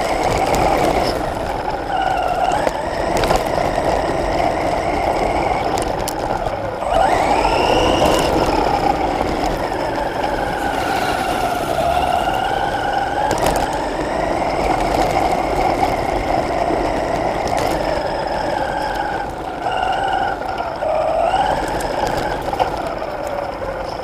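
Radio-controlled off-road truck heard from its own onboard camera: the motor and gears whine, the pitch rising and falling again and again as the truck speeds up and slows down, over the rumble of tyres on dirt and gravel.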